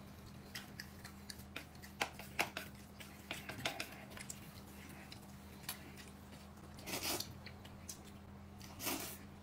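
Eating at close range: chewing with scattered light clicks of chopsticks and dishes and a few brief rustles, over a steady low hum.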